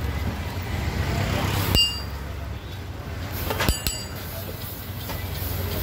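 Two sharp metal clinks, each with a brief ring, about two seconds apart, from steel utensils at a dosa griddle as batter is ladled out. Under them runs a steady low street rumble.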